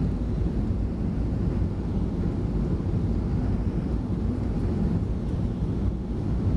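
Steady low rumble of a Boeing 737-400 heard from inside the passenger cabin: engine and airflow noise with no distinct events.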